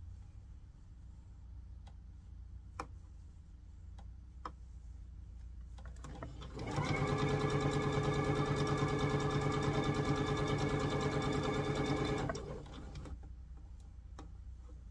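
Electric sewing machine running at a steady speed for about five and a half seconds, starting about six and a half seconds in and stopping cleanly. A couple of light clicks come a few seconds before it.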